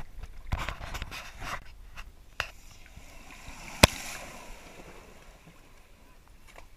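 Mountain bike riding through a shallow stream ford close by, its wheels throwing up splashing water, loudest about four seconds in with a sharp knock as the spray hits, then the wheels sloshing on through the water.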